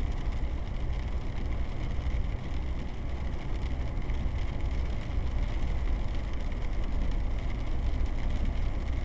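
Steady low rumble and road noise of a car driving on wet pavement, heard from inside the cabin: engine and tyres running on a rain-soaked road.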